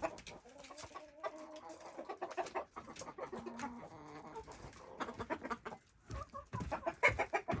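Chickens clucking: short calls scattered at first, coming quicker and louder in the last couple of seconds.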